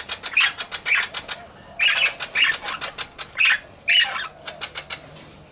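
Baby princess parrots begging to be fed: a fast, rhythmic chatter of clicks with louder harsh calls about twice a second. The chatter breaks off briefly about a second and a half in and thins to scattered ticks near the end.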